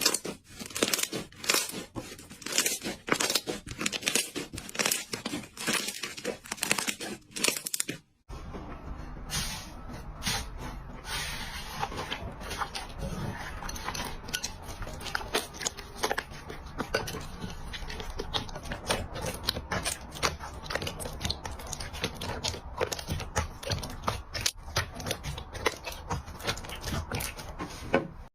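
Slime being squeezed and stretched by hand, giving rapid crackling and popping clicks. About eight seconds in it breaks off briefly, and a second stretch follows with a denser, softer crackle over a steady hiss.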